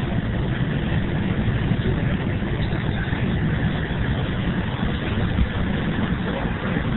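Steady drone of engine and road noise inside a moving motorcoach at cruising speed, with a deep rumble and no changes or separate events.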